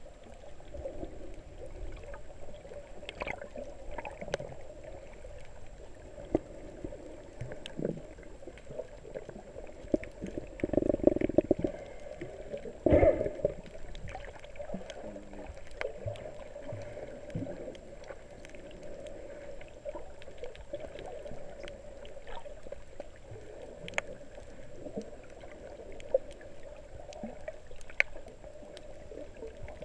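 Muffled underwater water noise with the camera just below the surface: steady sloshing and gurgling with scattered sharp clicks. A louder rush of water comes about eleven seconds in, and a sharp knock about two seconds later.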